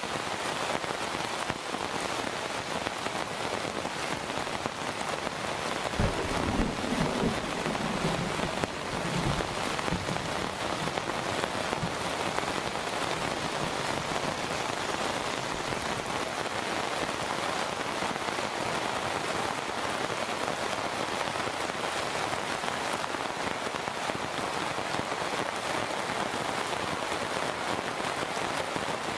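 Heavy monsoon rain falling steadily, a dense even hiss of rain hitting the ground and foliage. About six seconds in, a low rumble rises over it for a few seconds, then fades.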